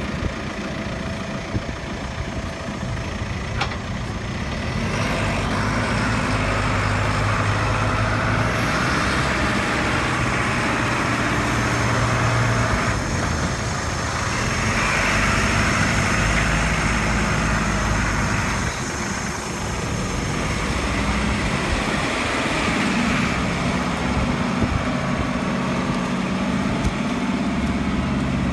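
JCB 5CX backhoe loader's diesel engine running, with the engine working harder in three stretches of a few seconds each, carrying a hiss.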